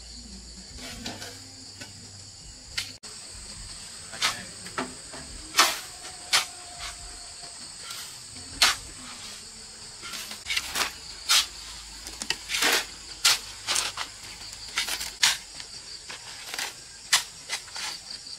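Steady high-pitched insect chorus, such as crickets, with a run of short, sharp knocks and scrapes at irregular intervals that come more often in the second half.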